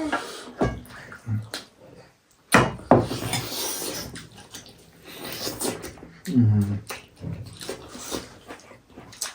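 Close-up eating sounds: slurping soup and chewing, with scattered clicks and a sudden louder noisy burst a few seconds in.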